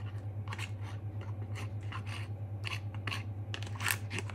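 Metal utensil scraping pulled pork in sauce out of its plastic tray, in short repeated scrapes about three a second, to get every last drop onto the fries. A steady low hum runs underneath.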